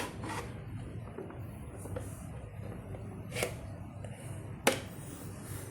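Two short sharp knocks from objects being handled, the second about a second and a half after the first, over a steady low hum.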